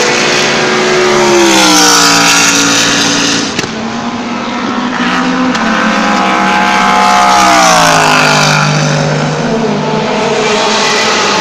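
Race cars' engines running at high revs, loud throughout, with the engine note dropping in pitch twice as cars go by: about two seconds in and again near eight seconds.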